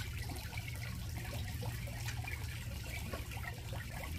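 A person chewing crispy fried fish, faint scattered crunching ticks over a steady low background hum.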